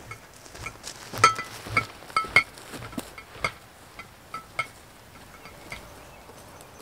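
Gear on a backpack clinking with the wearer's steps: about a dozen light, irregular metallic clinks, densest in the first half and thinning out toward the end.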